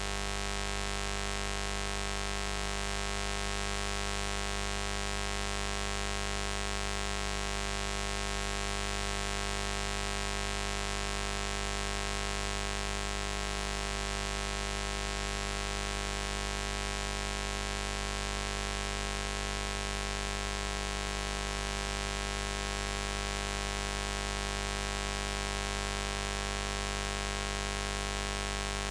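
Continuous electronic buzz sound effect: a steady buzzing tone full of overtones, not changing in pitch or loudness.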